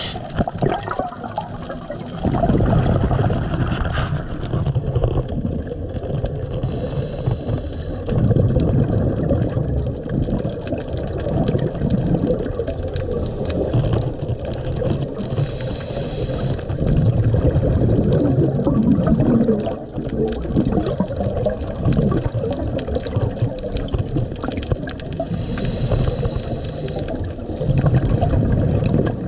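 Underwater ambience picked up by the camera: a steady low rumble of moving water, with a brief hiss every several seconds.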